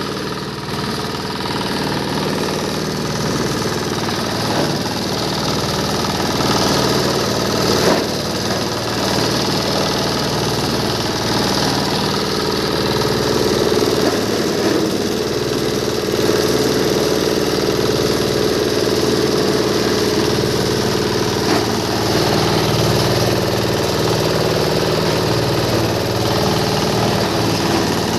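A cloth and foam waste shredding machine runs steadily while it grinds rags and foam. Its drone is loud and even, with a steady hum and a few brief knocks.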